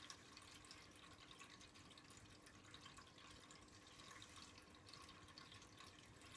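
Near silence: faint room tone with light, scattered clicks.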